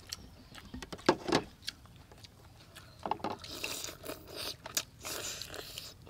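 Eating sounds: scattered clicks and smacks of chewing and handling prawns and lettuce wraps, with a stretch of rustling about three and a half seconds in.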